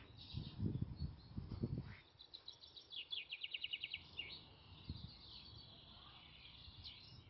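Male chaffinches singing from their contest boxes. About two and a half seconds in, one sings a full song: a fast run of notes falling in pitch and ending in a flourish, with fainter song fragments before and after. Low rumbles on the microphone in the first two seconds are the loudest sounds.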